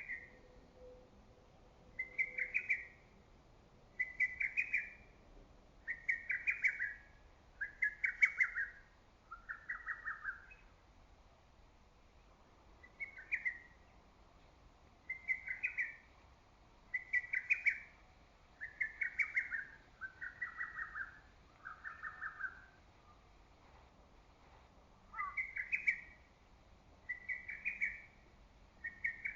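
Lesser cuckoo singing its loud, rapid phrase over and over, about one every two seconds, in three bouts with short pauses between. Within each bout the phrases slide lower in pitch.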